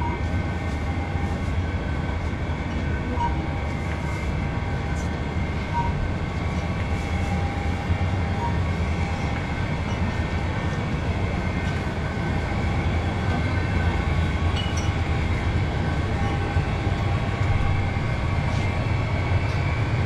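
Steady low hum and drone of supermarket refrigerated display cases running, with a few faint short beeps in the first half.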